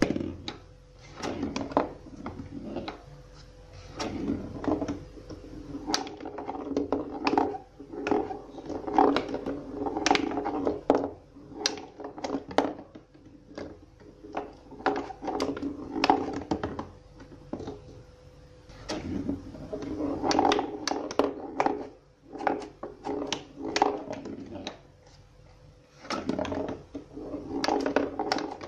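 A small ball rolling and rattling around a homemade cardboard pinball table, with irregular hollow knocks from the rubber-band cardboard flippers and plunger and from the ball striking the cardboard walls. The knocks come in busy clusters with a few short lulls.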